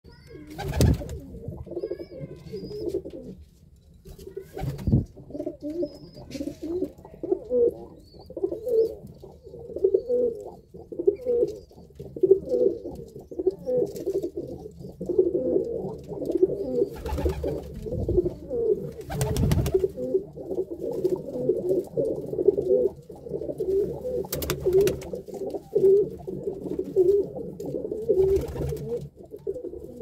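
Many domestic pigeons cooing together in overlapping, continuous low warbles, with a handful of brief sharp noises now and then.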